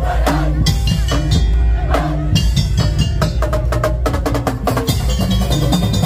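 Madurese tong-tong (daul) ensemble playing live: heavy drums and wooden percussion over a deep bass, with pitched ringing tones and a quick flurry of strikes about three to four and a half seconds in.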